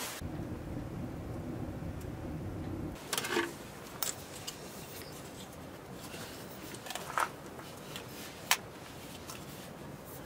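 Handling noise from a metal-legged stand being moved: a low rumble for about the first three seconds that cuts off suddenly, then a few scattered sharp clicks and knocks, the loudest about eight and a half seconds in.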